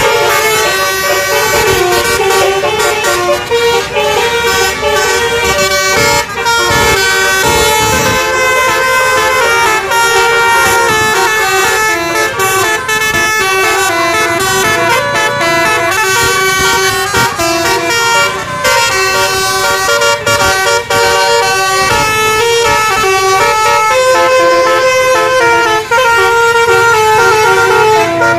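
Tour bus's basuri telolet horn playing a loud, unbroken tune of stepped notes.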